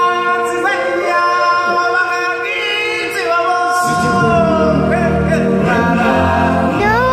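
Live stage-show music: long, held sung notes from a singer with choir-like voices, and low accompaniment coming in about four seconds in.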